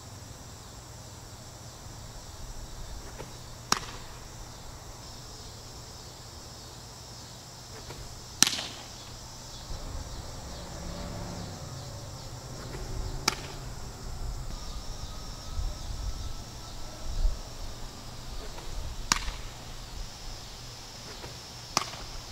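Pitched baseballs smacking into a catcher's mitt: five sharp, separate pops, the second the loudest. Behind them runs a steady high insect drone.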